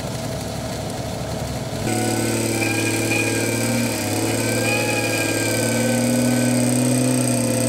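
Off-road 4x4 engine running. About two seconds in, the sound changes abruptly to a louder, steadier engine drone with a high whine over it.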